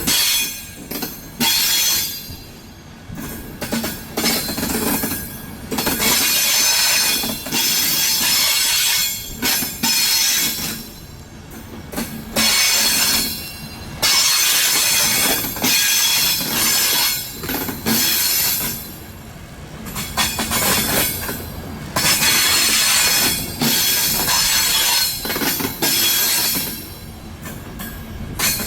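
Passenger train's steel wheels squealing against the rails in repeated high-pitched stretches, each lasting a few seconds, separated by quieter gaps.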